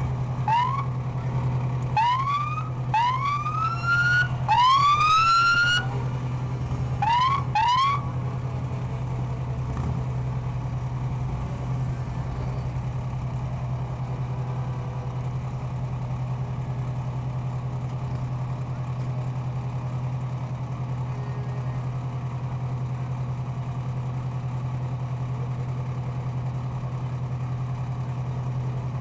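An emergency vehicle's electronic siren gives six short rising whoops in the first eight seconds or so, the fourth the longest. Under them and after them a steady low engine hum goes on.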